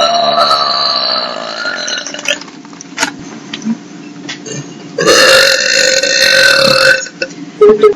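Two long, loud burps from girls. The first is already under way and tails off about two seconds in; the second starts about five seconds in and lasts about two seconds.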